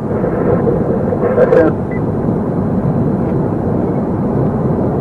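Steady low noise of a vehicle running.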